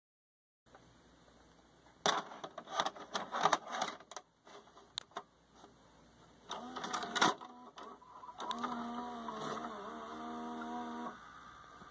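Orion four-head VHS video recorder taking in a cassette: a run of clicks and knocks as the tape goes into the slot, then the loading mechanism's motor whirs with a steady pitched hum for about three seconds and stops abruptly.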